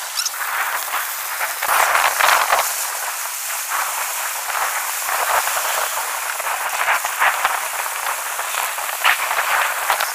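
Heavy rain falling steadily: a dense hiss of many small drop hits.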